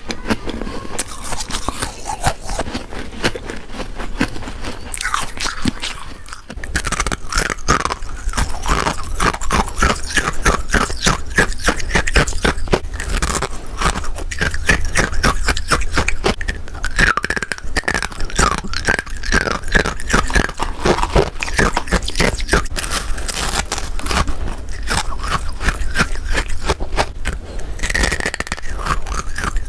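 Close-up bites and chewing of freezer frost, a dense run of crunching and crackling. About six seconds in the bites turn faster and more closely packed.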